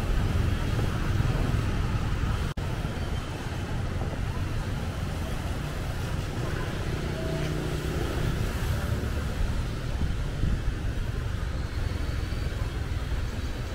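Outdoor street ambience: a steady rumble of road traffic, with a brief dropout in the sound about two and a half seconds in.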